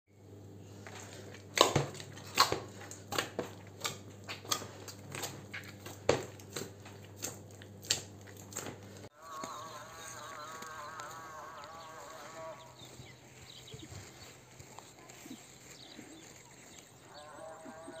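Hands kneading a large batch of bread dough in a plastic bowl: irregular slaps and thuds over a low steady hum. About halfway the sound changes to outdoor ambience, with a long wavering animal call and a shorter one near the end.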